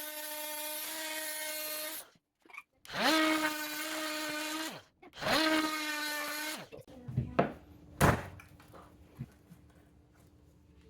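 Handheld power tool run in three short bursts of about two seconds each, its motor pitch rising as it starts and dropping as it is released, followed by a few knocks.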